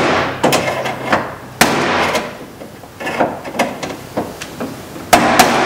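Metal clanking inside a car's hollow steel door as the window regulator is shifted and worked loose: several sharp knocks with short scraping rattles between them.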